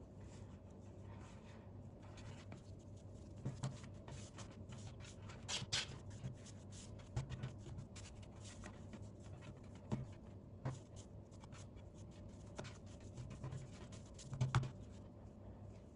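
Faint rubbing and soft scattered taps of hands working a soft dough rope as it is coiled into a spiral on a wooden tabletop. A few light knocks stand out, the loudest cluster near the end.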